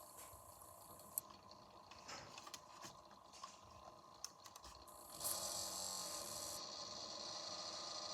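Desktop PC cooling fan running with a steady whine, with scattered light clicks in the first few seconds. About five seconds in, the fan noise jumps louder into a steady rough, hissing grind. The owner takes the grinding for a faulty fan, as the CPU area heats up too quickly.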